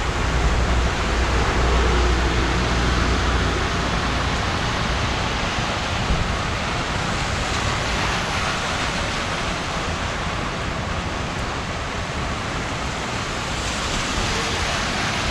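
Heavy rain falling steadily, a dense even hiss. A low rumble sits under it for the first few seconds, then fades.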